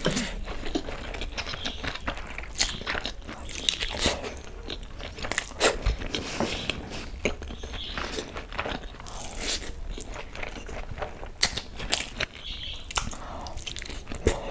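Close-miked eating: a person biting into and chewing big handfuls of chicken egg fried rice with chicken Manchurian gravy, with irregular sharp wet mouth clicks and smacks throughout.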